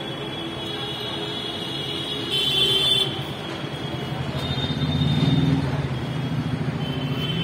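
Elevated metro station platform ambience: a steady background din, with a brief high-pitched tone about two and a half seconds in and a low rumble that swells to its loudest about five seconds in.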